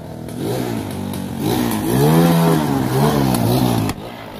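Quad ATV engine revving, its pitch rising and falling several times as the throttle is worked and growing louder as it comes closer. It cuts off abruptly near the end.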